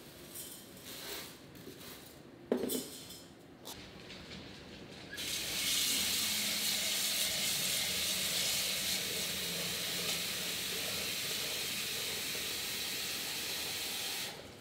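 Kitchen tap running into a stainless steel saucepan: a steady hiss of water that starts about five seconds in and stops just before the end. Before it, a few light clinks and one sharp knock about two and a half seconds in.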